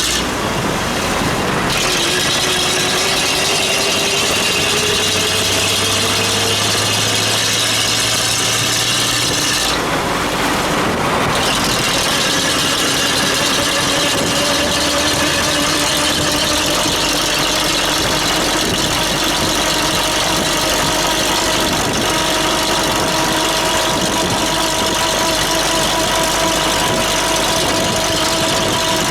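Street traffic: car engines running nearby over a steady hiss, as heard from a bicycle on wet roads. One engine tone slowly rises a couple of seconds in.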